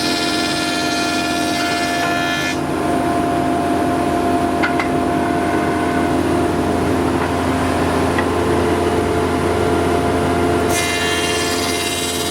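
Thickness planer running with a steady whine. About two and a half seconds in, the sound turns rougher and a little louder as timber is fed through and planed. Near the end it goes back to the free-running whine.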